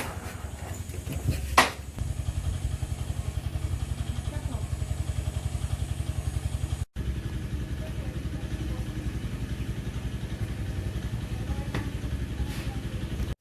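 A small engine running steadily with a fast, even chug. There is a sharp click about a second and a half in, and the sound drops out briefly near the middle.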